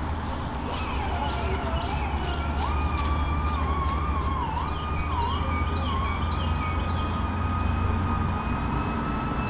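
A high, wavering tone that dips and rises several times, then holds steady for several seconds, over a steady low rumble, with short high chirps repeating above it.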